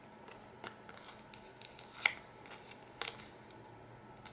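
Faint handling noises of paper planner pages and stickers: a few soft scattered ticks and rustles, the clearest about two seconds in.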